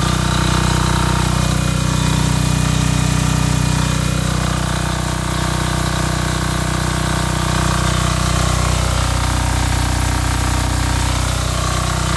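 Titan Industrial 5500-watt diesel generator, a copy of the Yanmar L70 single-cylinder air-cooled diesel, running steadily under load while it charges a battery bank through an inverter charger.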